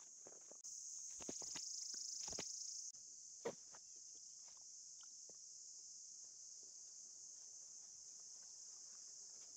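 Steady, high-pitched insect chorus. A few soft thumps and knocks fall in the first few seconds, the sharpest about three and a half seconds in.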